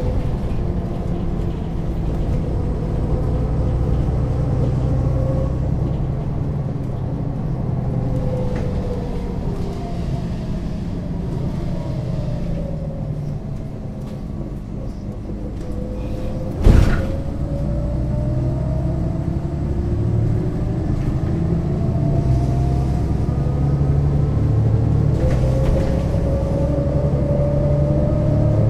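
MAN NL 283 Lion's City city bus with a ZF automatic gearbox, its diesel engine running. A whine falls steadily as the bus slows, then rises again as it gathers speed from a little past halfway. One sharp knock a little past halfway is the loudest sound.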